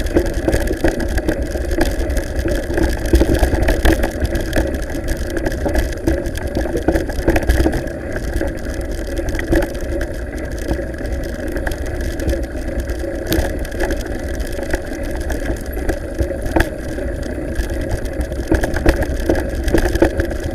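Steady rumble and rattle of a mountain bike riding over a cobbled and gravel track, picked up by a camera carried on the bike, with wind buffeting the microphone. Scattered sharp knocks come from bumps.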